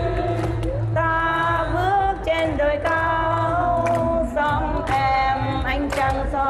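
A Vietnamese song sung in long held notes that bend in pitch, over a low steady accompaniment tone for most of the time.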